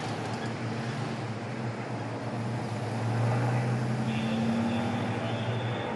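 Cars driving slowly over cobblestones through a gateway: steady engine hum with tyre noise, growing louder about three seconds in as a car draws near.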